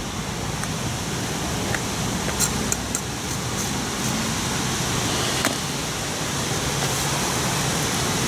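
Steady background noise, an even hiss over a low hum, with a few faint short clicks about two and a half, three and five and a half seconds in.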